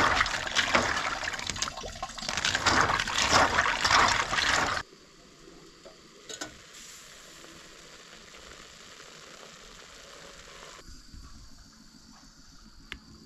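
Hands swishing and rubbing unshelled peanuts in a steel bowl of water, a loud wet rattling wash that cuts off after about five seconds. Then a quiet steady hiss, with a single clink of a metal pot lid about a second and a half later.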